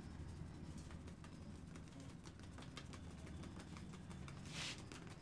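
Fingertip tapping on a person's head and hair during a head massage: a quick, irregular patter of faint light taps, with a short louder hiss near the end.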